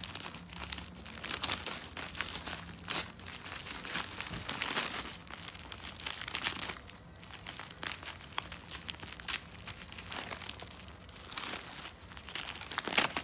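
Brown kraft-paper mailing envelope being torn open and crumpled by hand: an irregular rustling and crinkling of stiff paper, with a short lull about halfway through.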